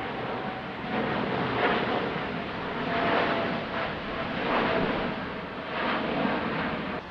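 Jet airliner engines, a noisy rush with a faint steady whine, swelling and fading several times.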